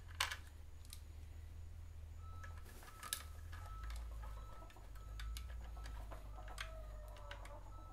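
Scattered light clicks and ticks of a T-handle driver turning screws down into a motorcycle's intake base plate, in small clusters, over a steady low hum.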